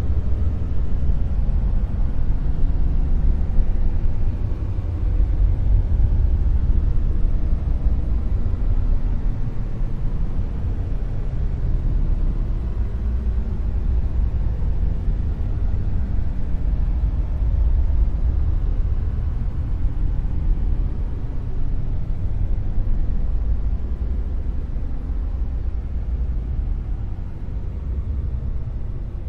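Dark noise: a steady, deep rumbling hiss with most of its weight in the bass and little treble, swelling and easing a little over the seconds.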